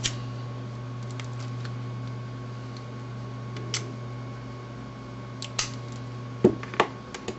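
Scattered small metallic clicks and clinks of padlocks and keys being handled, with two sharper clicks near the end, over a steady low hum.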